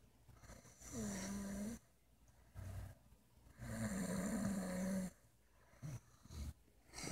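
A person lying in bed snoring, with two long, pitched snores and a few short ones between them.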